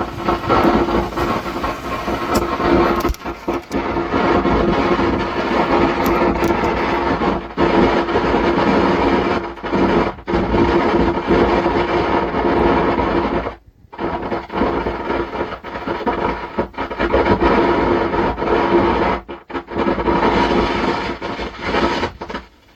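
Speaker driven by a faulty 120-watt audio amplifier giving out a loud, continuous crackling rumble with hiss and a steady hum, like thunder, the fault being repaired. The noise cuts out briefly a few times, the amplifier's sound dropping out now and then.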